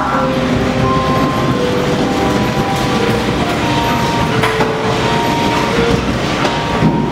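Haunted-house ride car rumbling steadily along its track, with sustained tones that shift in pitch over the rumble.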